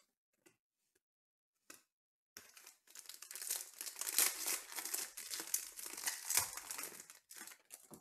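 Foil wrapper of a Panini Contenders baseball card pack being torn open and crinkled by hand, a dense crackle that starts about two seconds in and runs for about five seconds. Before it come a few faint clicks of cards being handled.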